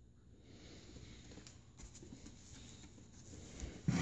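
Faint handling noise: light rustling and small clicks as an LED light fixture is turned over in the hands. There is a louder bump near the end.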